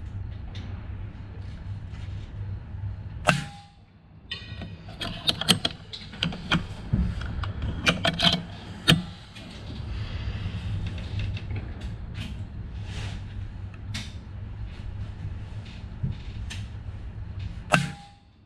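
Two shots from an Uragan 5.5 mm air rifle firing 27-grain slugs, each a single sharp crack, about three seconds in and near the end. Between them a run of metallic clicks as the action is cycled to chamber the next slug, over a steady low rumble.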